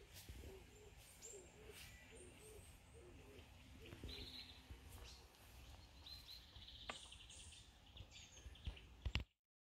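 Faint birdsong in woodland: short high trills about four seconds in and again around six to seven seconds, over a low rumble. A few knocks sound near the end, and then the sound cuts off abruptly.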